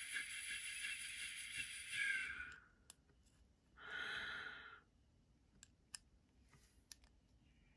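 A person sighing: a long breathy exhale, then a shorter one about four seconds in. A few faint clicks of small metal knife parts being handled fall in between and after.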